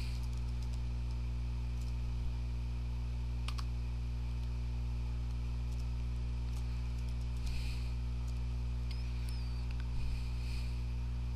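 Steady low electrical hum on the recording, with a few faint, scattered clicks at the computer.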